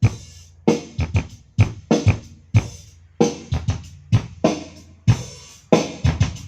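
Drum-beat music with kick, snare and hi-hat hits, about two a second, played loud through an AD Nux 15A active powered speaker. It is played at high volume as a test of the speaker's plastic molded cabinet, which the owner says vibrates and buzzes under the bass.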